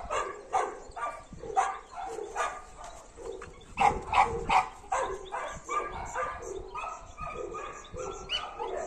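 Two dogs play-fighting, with short repeated barks one or two a second, loudest around four seconds in.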